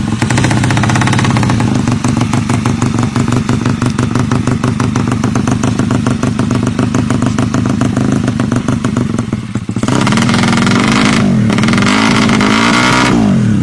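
Racing motorcycle engine running loud at high revs with a rapid, steady firing rhythm. About ten seconds in the sound changes abruptly, and near the end the engine note swings up and down as it revs and drops.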